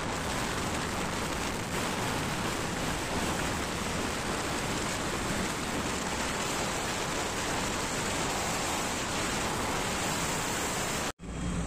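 Steady rushing noise of wind and road from a moving vehicle at speed, with no clear engine note, cutting off suddenly near the end.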